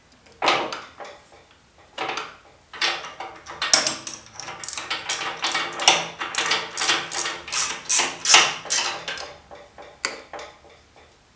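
A run of sharp metallic taps at the headstock of a stopped wood lathe, with a hand tool striking metal. There are a few scattered taps at first, then a quickening series of about fifteen strikes at roughly two to three a second. One last tap comes near the end.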